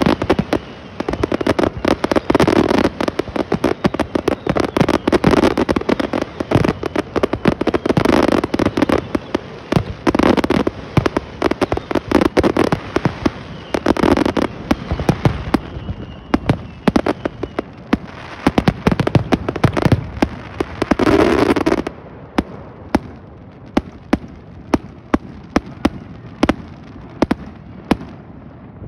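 Fireworks display: a dense barrage of aerial shells bursting, with rapid bangs and crackling and several bigger swells. The barrage stops abruptly about two-thirds of the way through, and scattered pops die away after it.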